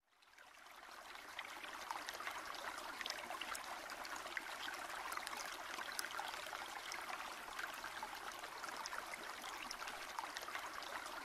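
Running water trickling and babbling steadily, fading in over the first second or so.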